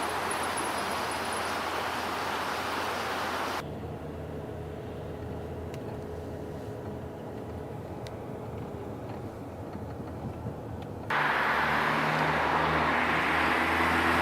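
Vehicle driving noise in three abruptly cut sections: a steady rushing road noise, then about four seconds in a quieter low engine hum, then about eleven seconds in a sudden louder mix of road rush and engine drone.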